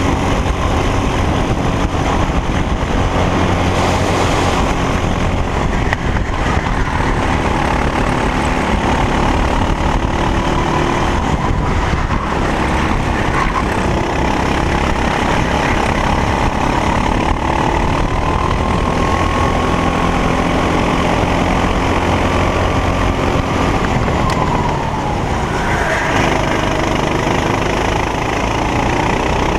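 Racing go-kart engine running hard from onboard, its pitch rising and falling with the throttle. Near the end the pitch falls away, as when lifting for a corner, then climbs quickly as it picks up again.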